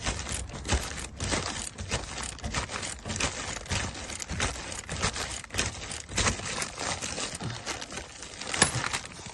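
Irregular clicks and metallic clinks of a socket wrench with a 27 mm socket working the oil filter loose.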